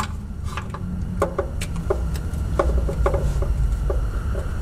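Light metallic clicks and knocks at an irregular pace from a hand socket wrench on a long extension, turning an oil pan bolt loose on a BMW F10's oil pan, over a steady low hum.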